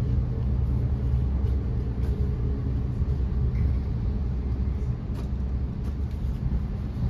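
Thameslink electric passenger train on the move, heard from inside the carriage: a steady low rumble with a few faint ticks.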